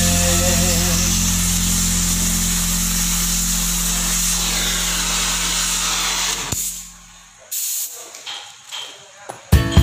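Cutting torch slicing through steel plate: a steady hissing blast with a low hum under it. It stops about seven seconds in as the cut is finished and the torch is lifted away, leaving a few faint clinks.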